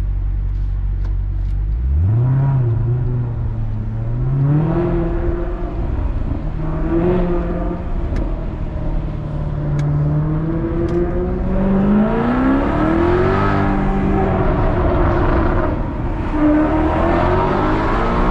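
Maserati Quattroporte's V8 exhaust, loud: idling steadily, then rising sharply about two seconds in as the car pulls away. It then accelerates through the gears, the pitch climbing and dropping back at each shift, with a longer climb near the middle.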